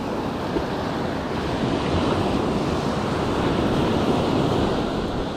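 Surf breaking and washing up on a beach, swelling a little about halfway through, with wind buffeting the microphone.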